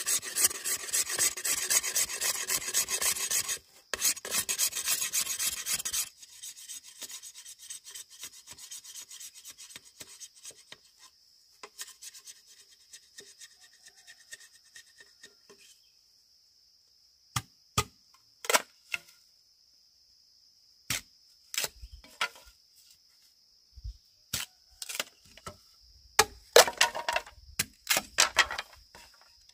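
Fast rasping strokes of a hand tool working bamboo, loud for about six seconds with a brief pause near four seconds, then fainter. They give way to scattered sharp knocks and taps, with a steady high whine underneath.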